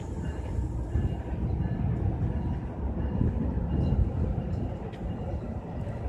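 Double-deck commuter passenger train rolling past on the track beside the platform: a steady low rumble of wheels on rails as the coaches go by, easing a little near the end as the train moves away.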